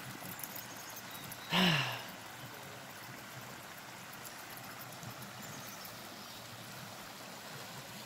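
Shallow mountain creek running over rocks: a steady, soft rush of water. About a second and a half in, a short vocal sound falling in pitch rises briefly above it.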